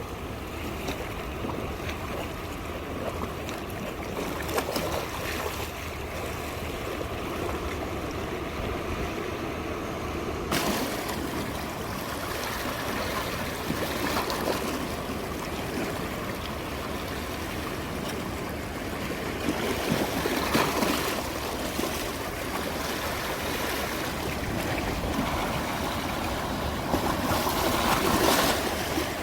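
Sea waves washing onto the shore: a steady surf hiss, with waves breaking louder about two-thirds of the way through and again near the end. About a third of the way in the sound turns suddenly brighter and hissier.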